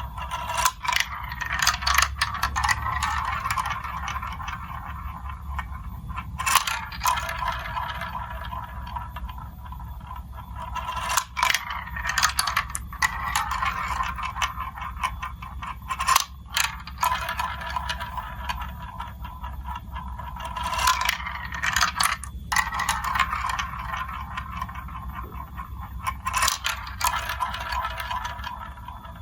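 Marbles rolling and rattling along a building-block marble run track, with sharp clicks now and then as they drop or knock against the pieces.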